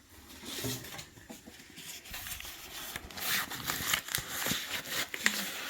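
Cardboard being torn and crumpled by hand: irregular rustling rips and crackles, sparse at first and busier after about three seconds.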